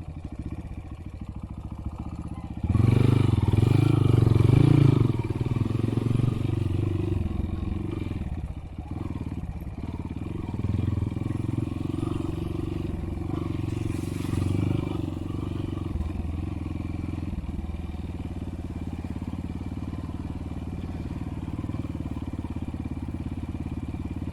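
Motorcycle engine running under way, with a louder, harder-pulling stretch about three seconds in, then settling back to a steady drone.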